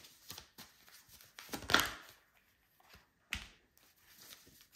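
A deck of tarot cards being handled and shuffled in the hands, with a few short sharp clacks and snaps of the cards. The loudest comes almost two seconds in and another about three and a half seconds in, as cards are cut and drawn.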